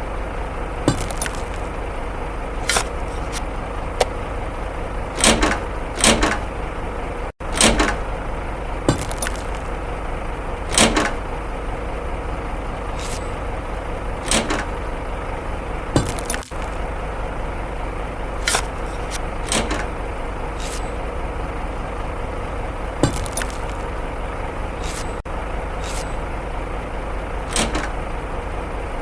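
A small electric motor in a homemade toy vehicle runs steadily with a hum, while short clicks and knocks sound every second or two.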